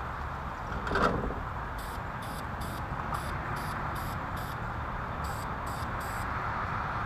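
Aerosol spray paint can spraying an engine pulley in quick short bursts, about two or three a second, over a steady low background rumble. A brief louder noise comes about a second in.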